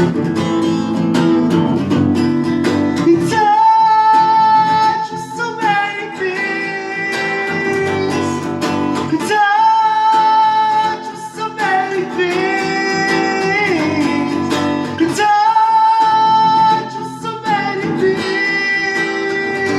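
A live song on strummed acoustic guitar, with three long wordless vocal notes held over the chords. The guitar briefly drops out each time a held note begins.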